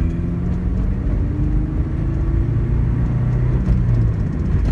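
Low droning hum over a steady road rumble inside a moving 2002 Subaru Impreza Outback. It is the rotational noise the owner cannot place: he suspects unbalanced rims on the new rear tyres, or a CV joint, driveshaft or rear differential.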